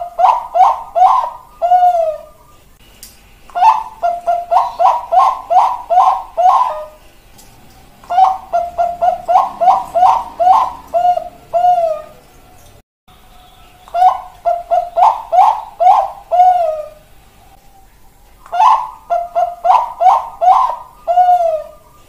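Zebra dove (Bangkok-strain perkutut) song: about five phrases of quick staccato coos, each ending in a longer note that falls in pitch, separated by pauses of a second or two.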